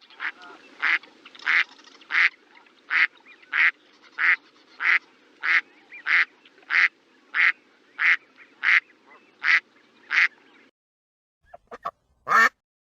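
Duck quacking in a long, evenly spaced series, about three quacks every two seconds, over a faint low background hiss. The series stops; near the end come a couple of short clicks and one last, louder quack.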